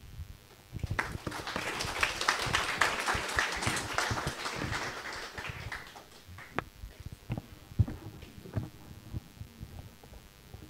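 Audience applauding, starting about a second in and dying away after about five seconds into a few scattered claps.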